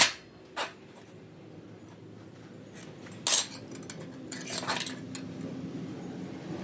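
Metal parts clinking and knocking as they are handled and set down: a few separate sharp clanks, the loudest about three seconds in, and a small cluster soon after.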